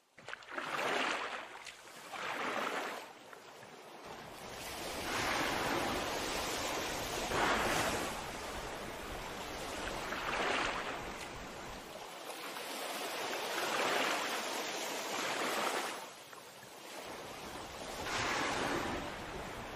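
Sea waves surging and washing, the rush swelling and falling back every two or three seconds.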